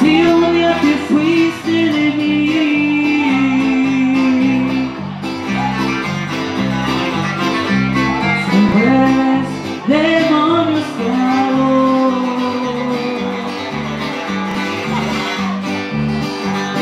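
Live sierreño band playing without words: acoustic guitars, electric bass and drums keep a steady beat under a sliding melodic line.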